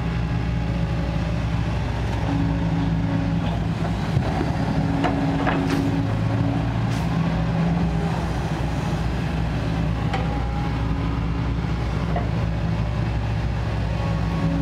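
Kobelco SK140 excavator's diesel engine running, its tone shifting every second or two as the load comes and goes. There are a few short sharp squeaks or clanks in the middle.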